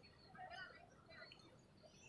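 Faint chirps and short calls of small birds, several overlapping, busiest about half a second in.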